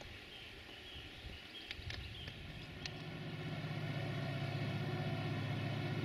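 EMD diesel locomotive engine approaching: a low, rhythmic throb that sets in about two and a half seconds in and grows steadily louder. Faint bird chirps are heard before it.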